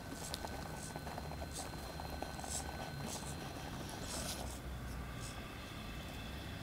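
Electric motor and gearing of an HSP Pangolin RC rock crawler whining faintly as it crawls over rocks, with scattered short scrapes and crunches of its tyres and chassis on stone.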